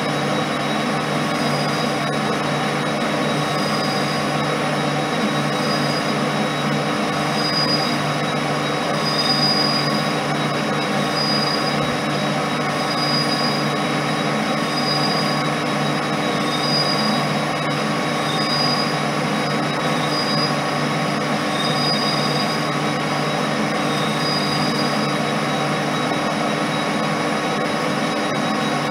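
Colchester lathe running steadily while turning a thin stainless steel sheet held by a pressure turning tool, with a high-pitched squeal from the cut that swells every second or two over the steady machine sound.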